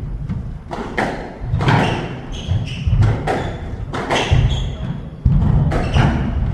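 Squash rally: the ball cracks off rackets and walls about once a second, with feet thudding on the wooden court floor and short shoe squeaks.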